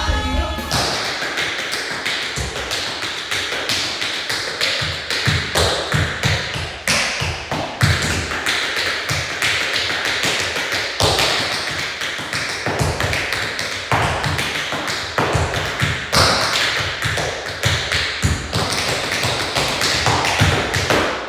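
Tap shoes striking a hard studio floor in quick, uneven runs of clicks mixed with heavier heel drops, danced with no music.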